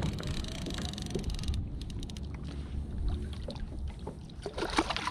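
Water sloshing against a kayak hull, with wind on the microphone, and a cluster of sharp knocks or splashes near the end.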